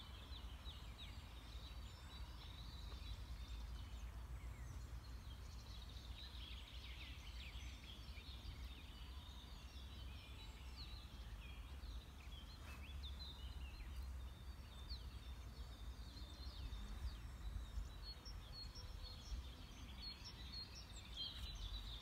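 Wild birds chirping and singing, many short high calls that come thicker about six seconds in and again near the end, over a low steady rumble.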